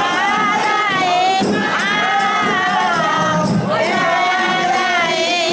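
Festive dance music: group singing over a steady jingling percussion beat, with a crowd's voices mixed in.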